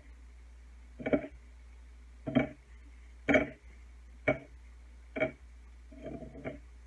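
Tomato slices being patted and pressed into a cornmeal and breadcrumb coating on a ceramic plate: about five short knocks, roughly one a second, then a brief scuffle near the end.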